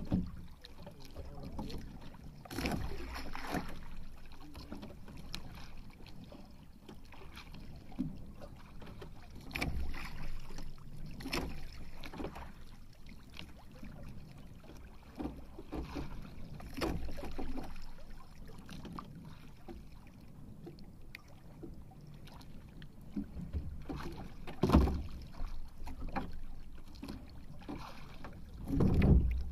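Wind and water noise aboard a small outrigger boat at sea, a steady low rumble broken by irregular knocks and thumps against the hull, the loudest about 25 seconds in and just before the end.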